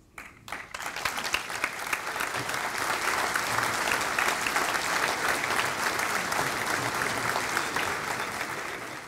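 Audience applauding, many hands clapping together: the clapping starts straight away, builds over the first second, holds steady, and begins to die down near the end.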